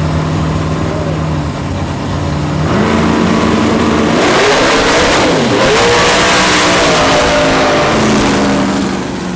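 A drag car's engine running loud, its pitch stepping up about a third of the way in, dipping and climbing again around the middle with a rush of noise, then easing down near the end.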